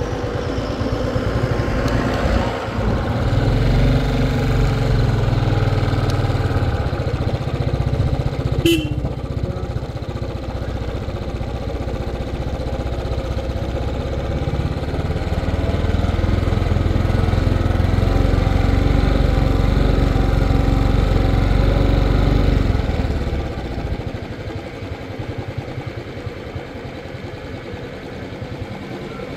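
Royal Enfield Classic 350's single-cylinder engine running as the motorcycle rides along, with a short beep about nine seconds in. The engine sound drops away a little past twenty seconds in.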